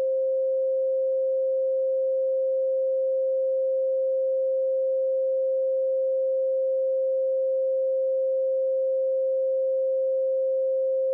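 A single steady electronic pure tone held at one unchanging mid pitch, with no melody, rhythm or other instruments.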